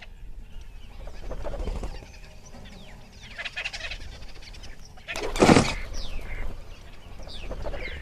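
Forest ambience of bird calls: several short, falling chirps, with one louder, harsh call about five and a half seconds in.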